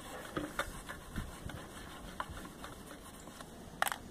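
Scattered light clicks and taps of a thin screwdriver against the removed intake manifold of a BMW 320d diesel, with one sharper click near the end.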